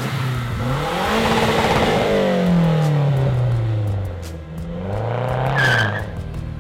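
Mazdaspeed3's turbocharged 2.3-litre four-cylinder pulling away under acceleration. The revs climb, fall, then climb and fall a second time.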